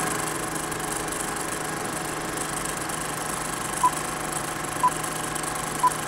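A steady, engine-like hum, with a short high beep once a second starting about four seconds in.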